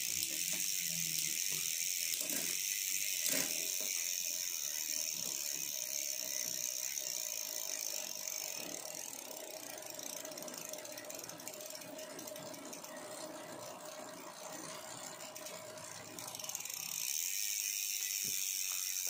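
Mountain bike drivetrain turning on a stand: a new KMC 12-speed chain running over a ZTTO cassette and through the rear derailleur, with a fast, even ratcheting buzz. It runs very smooth, without chain noise, easing off in the middle and picking up again near the end.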